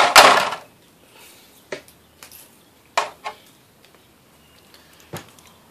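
Metal parts of a scrapped aquarium light clattering as they are handled. There is a loud rattle at the start, then a few single sharp knocks and clinks.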